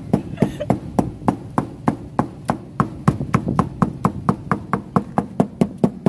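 Knife chopping on a cutting board in a steady rhythm, about three chops a second.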